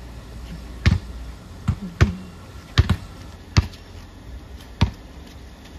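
A basketball bouncing on a concrete driveway: about seven separate thumps at uneven intervals.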